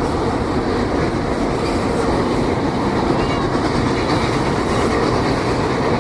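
Train passing close by: a loud, steady rumble of wheels running on the rails.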